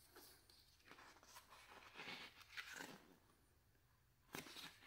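Faint rustling of a paper booklet being opened and its pages handled, with a slightly louder rustle near the end.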